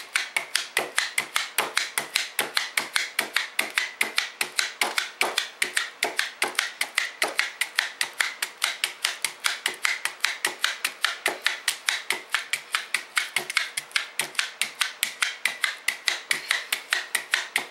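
Jaccard blade meat tenderizer punched rapidly and repeatedly into a London broil steak, a sharp click with every press at an even pace of about four to five a second.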